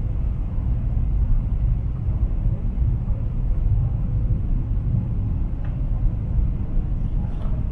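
Steady low rumble in the cabin of a Boeing 777-300ER rolling on the ground, its engines running at low thrust.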